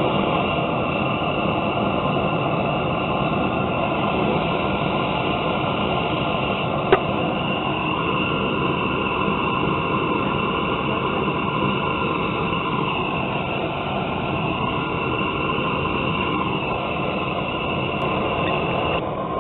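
Gas torch burner firing into a coffee can forge: a steady, continuous roaring hiss while a blade is brought to hardening heat, around 1500 degrees. There is a single sharp click about seven seconds in.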